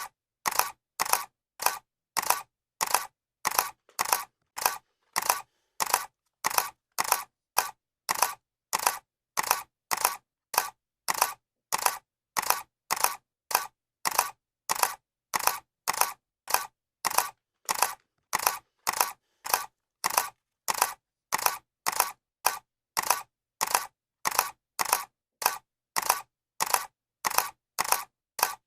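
Camera shutter click sound effect repeating at an even pace, about two clicks a second, each click a quick double snap.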